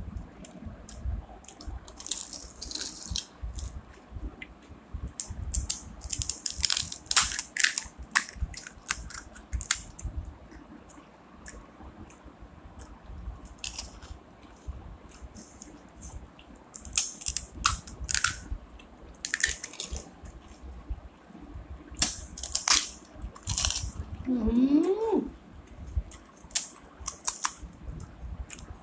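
Crisp phuchka (pani puri) shells cracking as fingers poke through them, and crunching as they are eaten, in scattered bursts of sharp crackles. A short rising tone sounds near the end.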